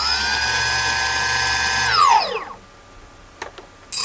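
Brushless motor of a DJI F550 hexacopter spinning unloaded, with no propeller and only a strip of tape on its bell, giving a steady high-pitched whine. About two seconds in it spins down, the whine falling away, and near the end it starts up again with a quickly rising whine.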